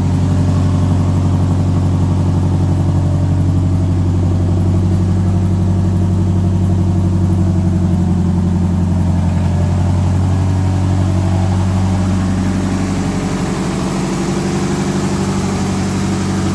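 Nissan 240SX (S13) engine idling steadily just after starting right up, following a wiring harness repair. It gets slightly quieter about twelve seconds in.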